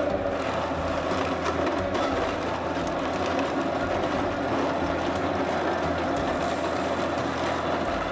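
Heavy machinery running steadily: a continuous engine drone with a faint clattering.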